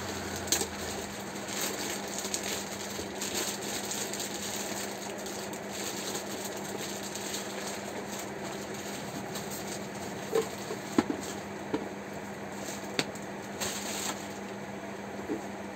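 Plastic packaging bags crinkling and rustling while a plastic mixer grinder base and jar are handled, with a few light knocks of the plastic parts against the counter. A steady low hum runs underneath.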